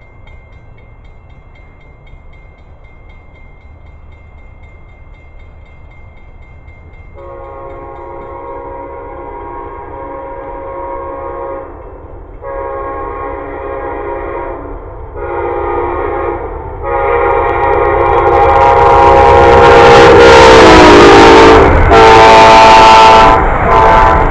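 Amtrak passenger train approaching a grade crossing, its locomotive air horn sounding a chord in several blasts: two long, two short, then one held long. The held blast drops in pitch as the locomotive passes, and the rumble of the train grows loud beneath it.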